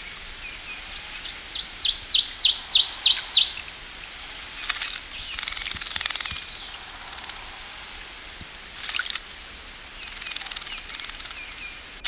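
Ovenbird singing its song, a quick run of repeated two-note phrases that grows louder over about two seconds and stops abruptly. A few shorter bird calls follow over a steady background hiss.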